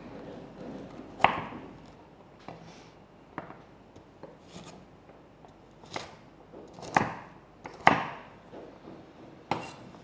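Chef's knife dicing a peeled carrot on a wooden board: about eight separate, irregularly spaced knocks as the blade cuts through and strikes the board.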